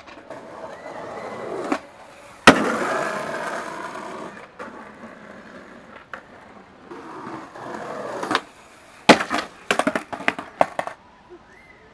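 Skateboard wheels rolling on concrete, with one very loud smack of the board on the ground about two and a half seconds in. It rolls again, then from about nine seconds a quick run of sharp clattering knocks as the skater falls and the loose board hits the concrete.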